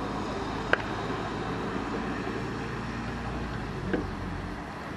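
A burning car heard from a distance: a steady rushing noise with a single sharp crack about a second in and a smaller pop near the end.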